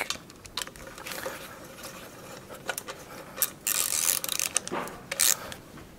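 Click-type torque wrench ratcheting as exhaust manifold bolts are drawn down to torque: several short runs of ratchet clicks and light metal taps, the longest a little past the middle.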